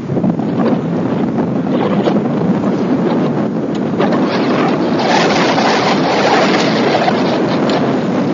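Wind buffeting the camcorder microphone: a loud, steady rushing noise with scattered crackles.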